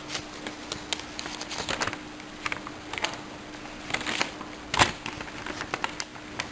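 Paper form and plastic mailer bag being handled and unfolded: irregular paper rustles and crackles, with one sharper crackle about five seconds in.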